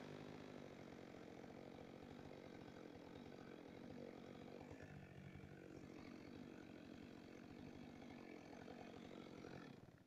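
Two-stroke chainsaw idling faintly and steadily, stopping suddenly at the very end.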